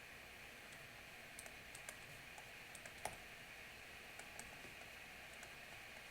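Near silence with a steady hiss and faint scattered clicks and taps of writing out an equation, one louder tap about three seconds in.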